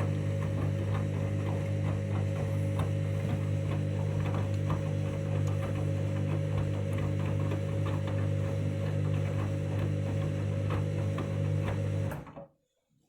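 Candy washing machine running near the end of its main wash: a steady hum with light ticking, cutting off abruptly about twelve seconds in.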